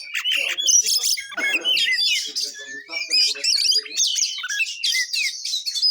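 Oriental magpie-robin (kacer) singing a fast, varied run of whistled and chirping notes that sweep up and down.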